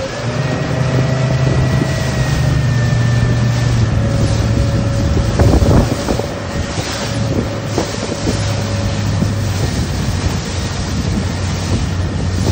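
Motorboat engine running at a steady hum, with wind buffeting the microphone and choppy water splashing; there is a brief louder splash a little before the middle.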